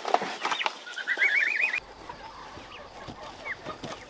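Young turkey poults peeping in a crate: short high rising peeps and a rapid warbling trill, then only an occasional faint peep in the second half.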